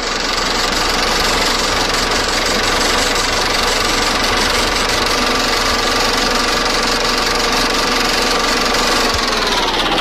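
A loud, steady drone of many held tones, which slides down in pitch near the end.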